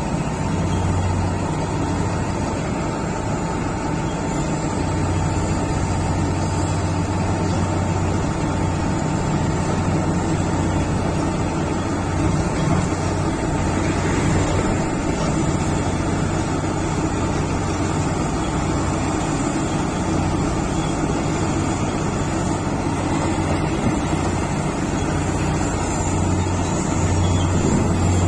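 Heavy mining diesel engines of a Komatsu PC1800 hydraulic excavator and a Caterpillar 777D haul truck running. They make a steady low drone that swells and eases as the excavator works, with a thin steady whine above it.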